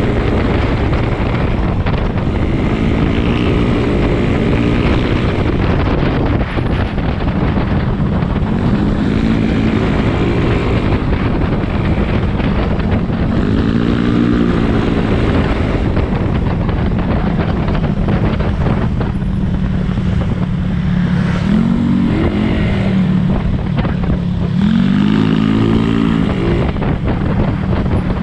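Yamaha Mio 160cc scooter's single-cylinder engine running while riding, over a steady hiss of wind and road noise. Its pitch rises and falls about five times as the throttle is opened and eased.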